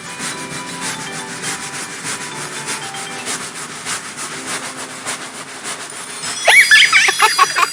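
Wooden toy train rolling along wooden track, its wheels clicking irregularly over the rails and joints. About six and a half seconds in, a loud burst of high chirping sounds starts over it.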